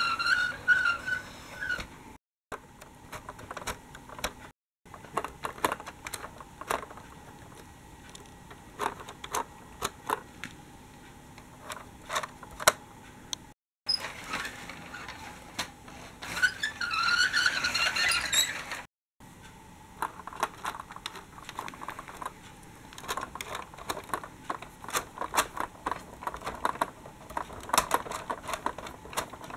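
Plastic Dickie Toys tram and articulated bus being handled and rolled along, giving many short clicks and rattles. A pitched electronic sound effect from the toy plays briefly near the start and again for a couple of seconds just past the middle.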